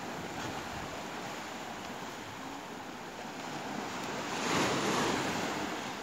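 Sea surf washing onto a small sandy cove beach: a steady rush of breaking waves, with one wave surging louder about four and a half seconds in.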